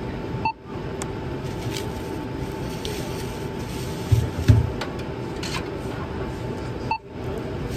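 Steady hum of a large store, with two dull thumps of items handled close to the phone's microphone about four seconds in. The sound briefly cuts out twice, each time just after a short beep-like tone.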